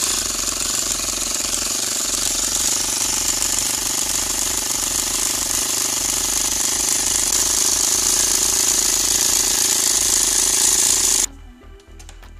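Mini 12 V tyre-inflator air compressor running with its casing off, the DC motor and plastic gear driving the piston pump: loud and steady, working again after its repair. It cuts off suddenly about eleven seconds in.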